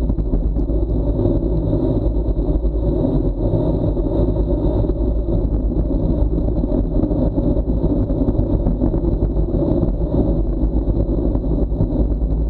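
Wind rushing over the microphone of a bicycle-mounted action camera during a fast descent at about 45 km/h. It is a steady low rumble that does not let up.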